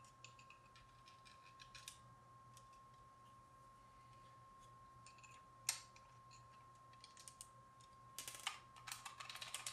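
Faint clicks and taps of 3D-printed plastic blaster parts being handled as a pin is worked into the ejector housing, with one sharper click a little past halfway and a quick run of clicks near the end.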